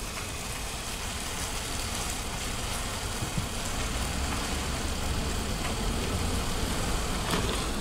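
Engine and road noise of a pickup truck heard from inside the cab as it drives along: a steady deep rumble that slowly grows louder.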